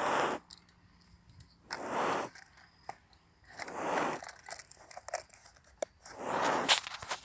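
Heavy, rhythmic breathing of a recumbent cow, one noisy breath about every two seconds, with faint clicks and rustles between breaths.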